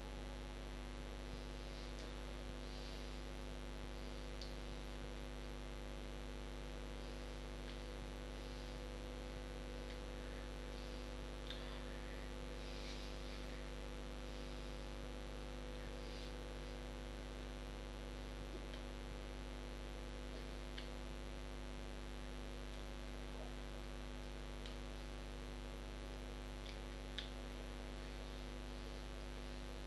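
Steady electrical hum made of a stack of even, unchanging tones, with a few faint clicks scattered through it.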